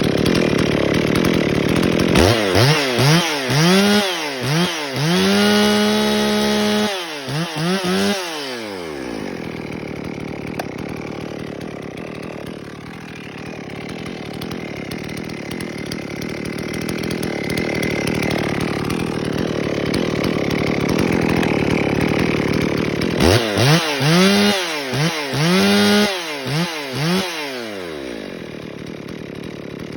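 Ported Husqvarna 55 Rancher two-stroke chainsaw revved in a series of quick throttle blips, held briefly at full revs, then running steadily under load as it cuts wood for about fifteen seconds, before more throttle blips near the end.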